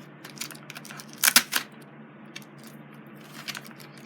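Toy packaging being opened by hand: tape pulled loose from underneath, with scattered small crackles and ticks and a quick cluster of three loud sharp crackles about a second and a half in.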